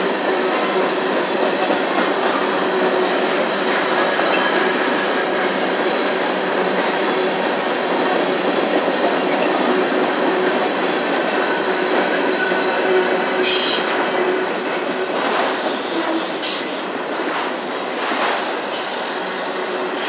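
Freight cars of a manifest train, covered hoppers and autoracks, rolling past: a steady noise of steel wheels on rail, with thin wheel-squeal tones. A sharp metallic clank comes about thirteen and a half seconds in, then a few lighter knocks.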